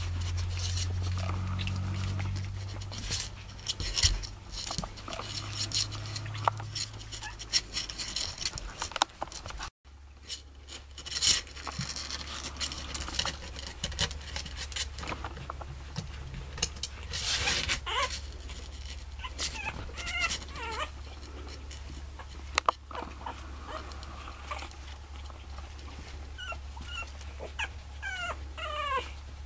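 A litter of young puppies scrambling about on bedding in a wooden whelping box: steady scratching and pattering of small paws, with a few short, high whimpering squeaks, several in quick succession near the end.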